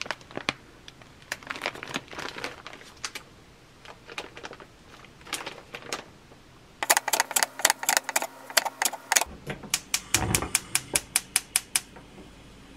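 Plastic packets of frozen fried rice crinkling and tapping as they are handled, then runs of sharp even ticks, about four a second near the end, from a gas stove's spark igniter lighting the burner under a frying pan.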